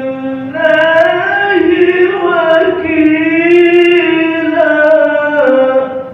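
Male reciter chanting the Qur'an in melodic qira'ah style: one long drawn-out, ornamented phrase whose pitch climbs about a second in and sinks back before it stops near the end.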